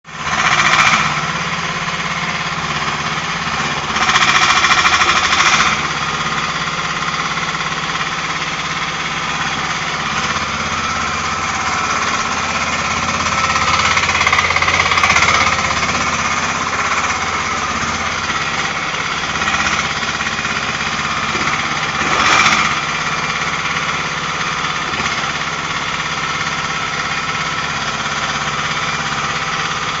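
Mini excavator's engine running steadily, with brief louder surges about a second in, from about four to five and a half seconds in, and about 22 seconds in.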